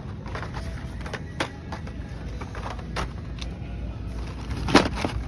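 Carded Hot Wheels cars clicking and rattling as they are handled and hung on peg hooks, a sharp click near the end the loudest, over background music and a low steady hum.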